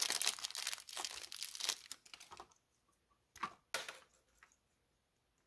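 Small clear plastic bag crinkling and rustling as it is handled to get a replacement bulb out, for about the first two and a half seconds. Then two sharp clicks about half a second apart.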